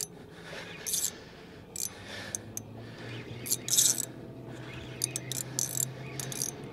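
Irregular clicks, clinks and scrapes of fishing tackle handled in a small aluminium boat, over a low steady hum.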